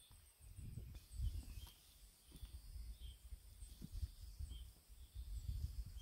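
Dull knocks and rustling of flat stones being set down and a person shifting about on a ground sheet, the loudest knock about a second in. Birds chirp in the background with short repeated notes.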